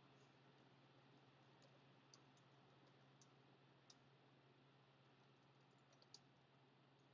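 Near silence with faint, scattered computer keyboard key clicks as text is typed, two of them a little louder, over a steady low hum.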